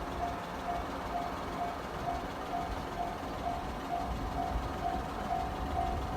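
Japanese level crossing's electronic warning bell, the JR-type tone, ringing in a steady even rhythm of a little over two dings a second to warn that a train is coming. A low vehicle rumble runs underneath.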